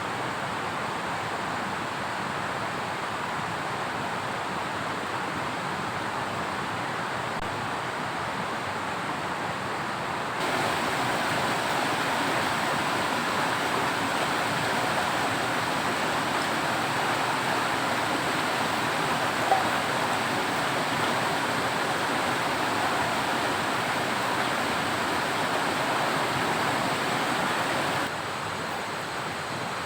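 Steady rushing of water in heavy rain. It gets abruptly louder about a third of the way in and drops back near the end, with one faint tick about two-thirds in.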